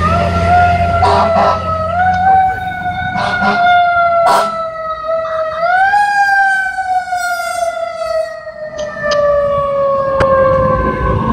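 Fire truck siren wailing as the ladder truck passes, its pitch climbing in steps over the first half and then slowly falling away. A few short sharp sounds cut in over it early on.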